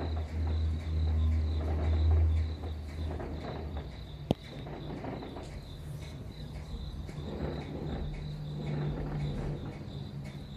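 Crickets chirping steadily under an unidentified low rumble that is loudest for the first two and a half seconds, then gives way to a fainter low hum; a single sharp click about four seconds in.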